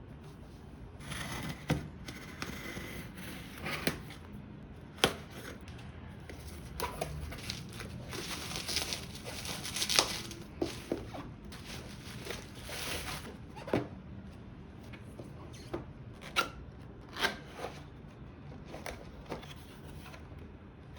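Packaging being handled and opened during an unboxing, with stretches of rustling, scraping and tearing between sharp taps and knocks.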